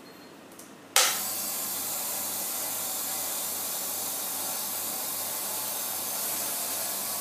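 Small Longines twin-head air compressor switched on about a second in: its motor starts with a sudden jolt and then runs with a steady hissing whir and a faint low pulsing hum.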